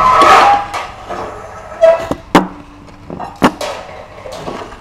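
Ceramic plates set down on a wooden table: two sharp knocks about a second apart, the first with a short ring.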